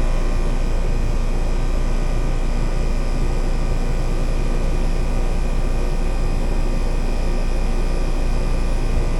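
Residential heat pump's outdoor unit running steadily in heat mode: a constant low hum under a steady rushing noise.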